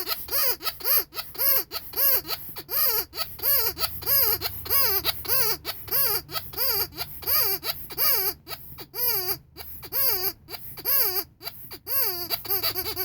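Rubber cow squeaky toy squeezed over and over, about two squeaks a second. Each squeak is a whiny rising-and-falling tone with an airy hiss.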